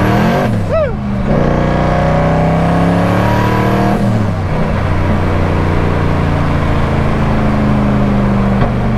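Turbocharged Nissan 300ZX (Z31) engine heard inside its stripped cabin, pulling hard with the pitch climbing, dropping at an upshift and climbing again before a second shift about four seconds in, then holding a steady pitch. A brief squeal comes just before one second in.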